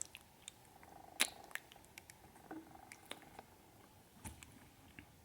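Close-miked ASMR mouth sounds: scattered soft lip clicks and kiss smacks, the loudest about a second in, over a faint hum lasting a couple of seconds.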